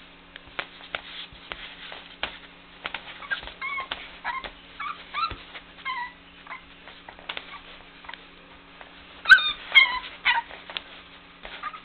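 Four-week-old Border Collie puppies yipping and whimpering as they play-fight, a string of short, high, squeaky calls; the loudest two come about nine seconds in. Light knocks and scuffles among the calls.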